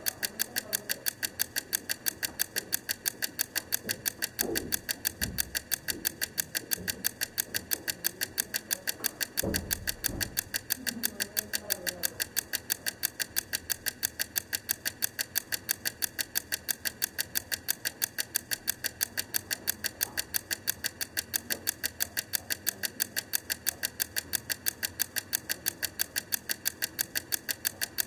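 Wind-up egg timer (Wrangler Blue Bell) ticking as its clockwork runs down: rapid, even ticks, about four a second.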